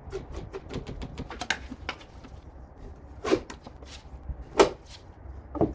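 Flexible putty knife scraping and tapping over spackle on a door, in a string of short strokes with four louder ones spread through.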